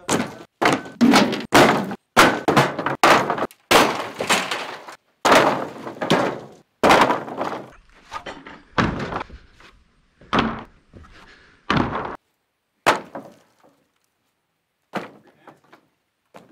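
Scrap boards and sheets of rusty corrugated metal from torn-out barn stalls being thrown down onto a trailer: a run of sharp crashes and clattering, coming thick and fast for the first half, then sparser and fainter.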